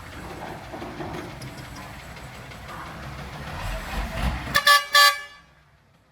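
Heavy machinery rumbling, then two short, loud toots of a vehicle horn, after which the sound drops away suddenly.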